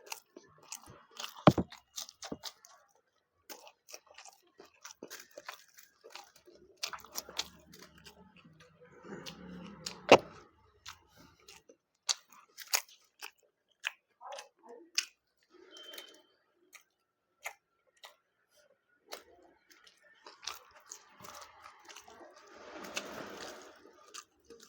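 A person chewing food close to the microphone: irregular wet smacking and crunching clicks, with two much louder clicks about a second and a half in and about ten seconds in.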